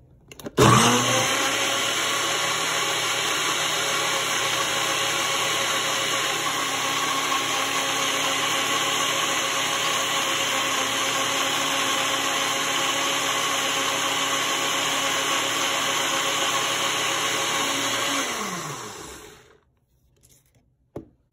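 Countertop blender running, blending a runny spinach and flour batter. It starts up about half a second in, runs steadily, then winds down with a falling pitch and stops near the end.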